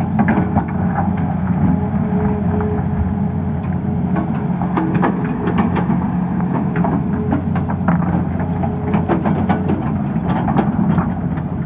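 Tata Hitachi excavator's diesel engine running steadily, with frequent sharp knocks and clatter throughout.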